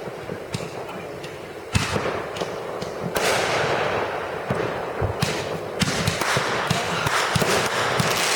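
Fireworks going off: a few scattered bangs, a loud bang just before two seconds in, then from about three seconds in a rapid run of many bangs over continuous crackling.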